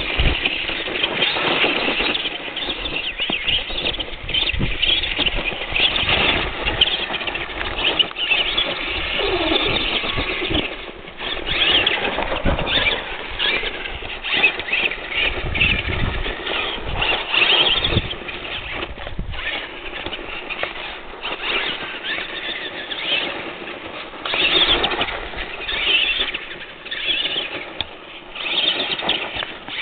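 Tamiya Clod Buster radio-controlled monster truck's electric motors and gearboxes whining as it drives through snow, swelling and falling away in repeated surges with the throttle.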